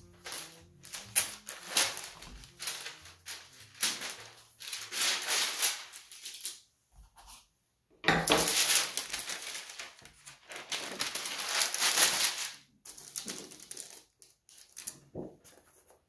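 Sheets of tracing paper rustling and crinkling as they are peeled from a pad and smoothed flat by hand, in irregular bursts that are loudest in the second half, with a short pause about seven seconds in.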